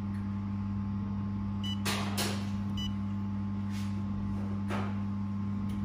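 Steady low electrical hum of the running handheld fiber laser welding machine, with two short high beeps from its touchscreen control panel as settings are tapped, about a second and a half in and again a second later. A few soft brief swishes come in between.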